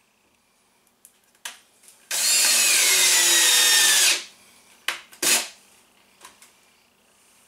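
A cordless drill/driver drives a truss-head screw through the fan's flange into the trailer roof for about two seconds, its motor pitch slowly dropping as the screw pulls down. Short knocks from handling the tool come before and after, with a brief second burst a second later.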